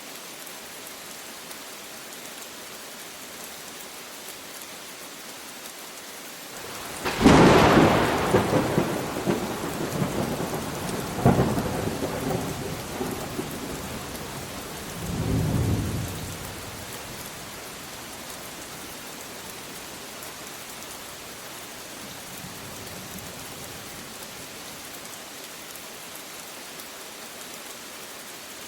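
Steady rain falling, with a sudden thunderclap about a quarter of the way in that rumbles on for several seconds. A second crack follows a few seconds later, then a last low rumble dies away, leaving the rain alone.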